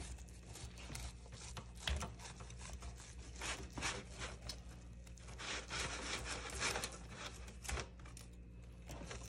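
A large knife sawing through a rack of barbecue-smoked ribs held up with tongs: irregular rasping, scraping strokes, with a low thump about two seconds in.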